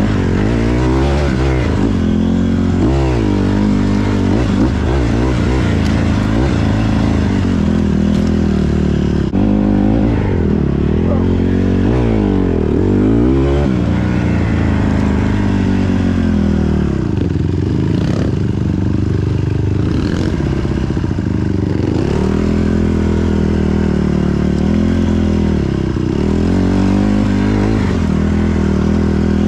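Honda CRF150R dirt bike's single-cylinder four-stroke engine being ridden hard, its pitch rising and falling over and over as the throttle is opened and closed and gears change.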